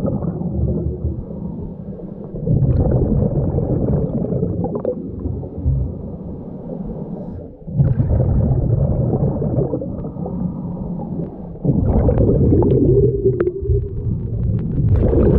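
Scuba diver breathing through a regulator, heard underwater: muffled rumbling bursts of exhaled bubbles about every four seconds, with quieter stretches between.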